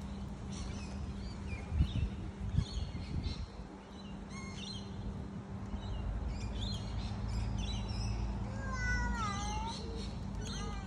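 Outdoor birdsong: many small birds chirping, with a drawn-out, meow-like wailing call falling in pitch a few times near the end. Two brief thumps about two seconds in, and wind rumbling on the microphone in the second half.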